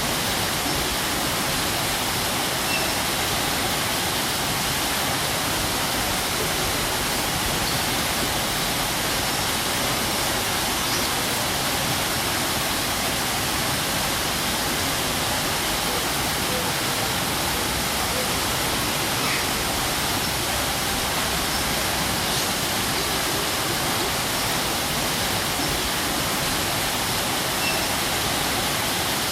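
Waterfall: water falling and splashing in a steady, even rush that does not change.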